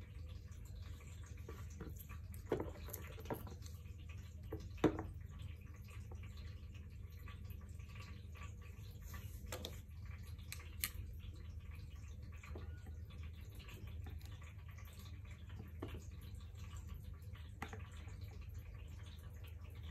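Scattered light clicks and taps from handling a lithium cell pack and its BMS board and working pliers on it, the sharpest a few seconds in, over a steady low hum.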